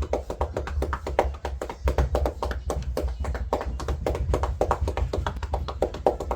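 Rapid, irregular tapping of hands, several taps a second, over a steady low rumble.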